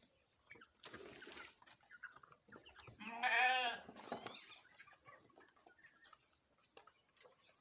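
Young poultry calling: one loud, wavering call lasting just under a second about three seconds in, followed by a short falling peep, among faint scattered clicks and rustles.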